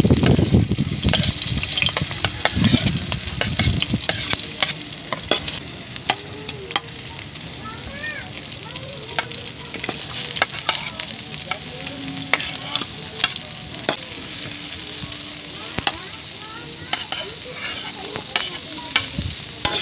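Chopped garlic, sliced red onion and ginger frying in oil in an aluminium wok: a steady sizzle, louder over the first few seconds, with scattered clicks and taps as the pieces are stirred and dropped in.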